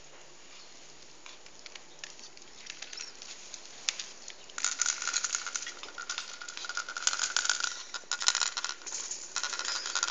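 Pomeranian dogs' claws pattering and clicking on a slate tile floor as they scurry about. The clicking is faint at first, then about halfway through turns loud, rapid and busy.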